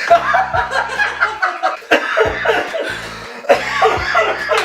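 A man's laughter breaking out as hacking, cough-like bursts, the 'dog cough', over background music.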